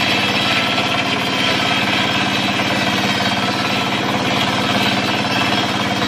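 Stationary single-cylinder diesel engine running steadily with a fast, even beat, driving a belt-driven circular saw that is ripping acacia wood.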